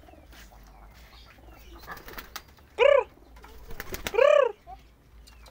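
Domestic pigeons around a loft, with a few sharp claps and two loud drawn-out calls about a second apart, each rising and then falling in pitch.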